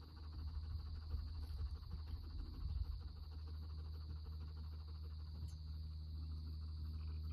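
Steady chorus of crickets, a continuous high-pitched chirring, over a low steady rumble, with some faint rustling in the first few seconds as hands press soil around a seedling.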